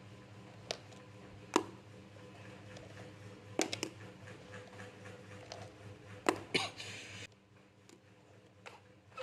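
Plastic twin-tip art markers being pulled from a plastic marker case and set down on a sketchbook page: a few light clicks and taps, with a short scraping rustle about six and a half seconds in. A low steady hum runs underneath and stops about seven seconds in.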